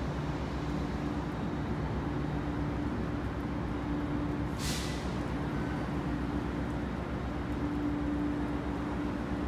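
Commuter passenger train standing at a platform, giving off a steady hum and rumble from its equipment. About four and a half seconds in, a short burst of air hiss sounds, like an air-brake release.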